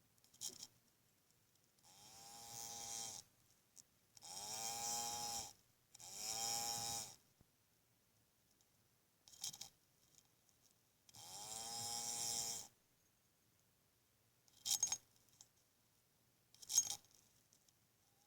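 Pseudoophonus rufipes ground beetle making its buzzing 'snores' (ronflements): four drawn-out buzzes of about a second and a half each, each rising slightly and then falling in pitch. A few short clicks come between them.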